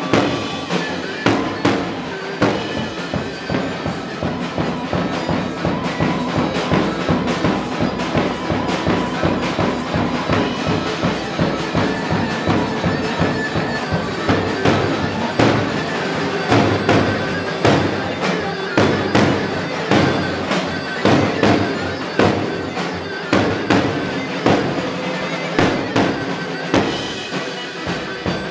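Live Turkish wedding band playing dance music in the halay style: a steady, driving drum beat under a loud, reedy wind-like melody.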